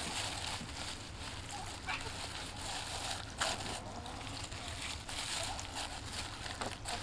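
Fresh parsley rustling as hands press bunches of it into a raw salmon's belly cavity, with a couple of short taps from handling the fish.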